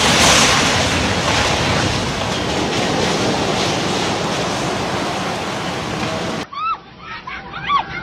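Rushing floodwater: a dense, steady roar of churning water that swells in the first second as a collapsing building drops into the torrent. About six and a half seconds in, it cuts off abruptly and excited people's voices follow.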